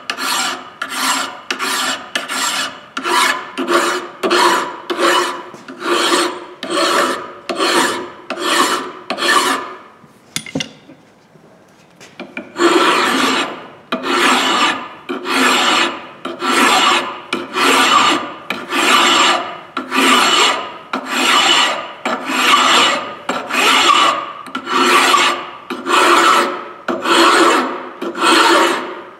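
Hand file rasping across the top of a metal hatchet head clamped in a vise, in even push strokes of nearly two a second. The strokes stop for about two seconds past the middle, then start again a little slower, about one a second.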